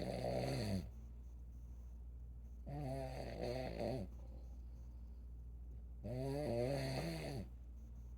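A sleeping elderly person snoring in a steady rhythm, one pitched, wavering snore about every three seconds, each lasting just over a second. A steady low hum runs underneath.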